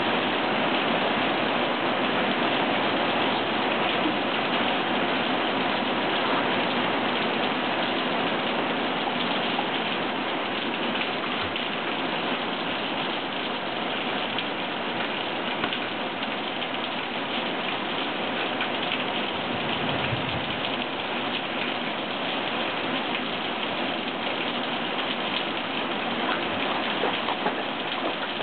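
Steady rain falling, an even hiss of drops that eases slightly partway through.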